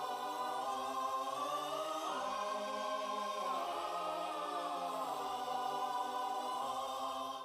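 A choir singing long, held chords without words, the pitch moving slowly between chords; it begins to fade out at the very end.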